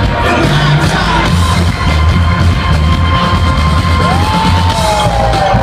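Live rock music played loud through a festival sound system, with a heavy pulsing bass line. A held, gliding note comes in about four seconds in.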